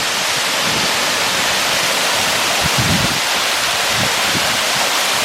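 Waterfall's falling water rushing, a loud, steady hiss of spray, heard close up.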